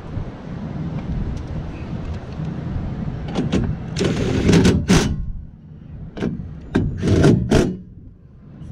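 A steady low rumble, then two clusters of sharp knocks and rattles, about three and six seconds in, as parts are handled inside a car door.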